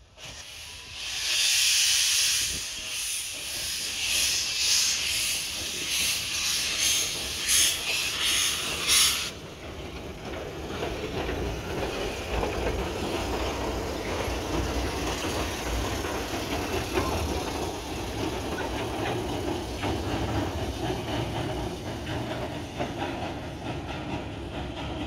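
Narrow-gauge steam tank locomotive No. 58 getting under way, its steam hissing loudly and pulsing with the strokes. The hiss cuts off about nine seconds in, leaving a low rumble and clatter as the engine and its cars roll past.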